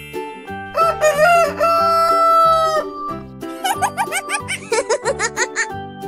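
Rooster crowing sound effect: one long cock-a-doodle-doo that wavers at the start and then holds a steady pitch, followed about a second later by a quick run of short squeaky calls, over light children's music with a steady beat.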